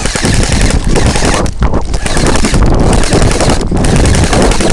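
Airsoft electric rifle firing long full-auto bursts, a fast buzzing rattle of shots broken by a few short pauses.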